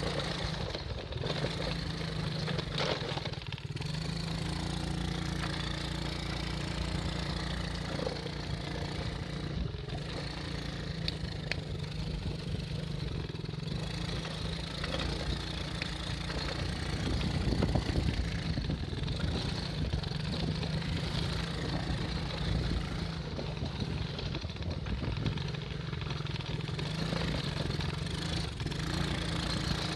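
Small off-road vehicle engine running at fairly steady revs, swelling briefly a little past halfway.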